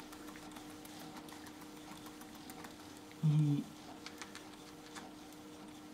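Quiet room with a steady faint hum and small rustling clicks, broken a little past halfway by one short adult voice sound, under half a second long.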